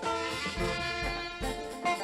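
Instrumental music with brass and a steady low beat.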